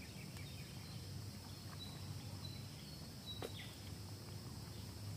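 Faint outdoor background: a steady high hiss, with a single sharp click about three and a half seconds in.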